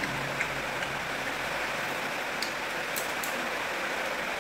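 A steady, even hiss with no words, with a few small, sharp clicks between about two and a half and three and a half seconds in.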